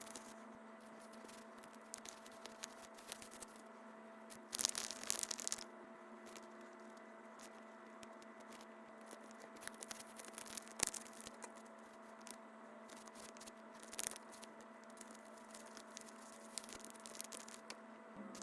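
Small handling noises from crafting: scattered light clicks and rustles, with a brief scratchy, tearing-like noise about five seconds in, over a steady faint hum.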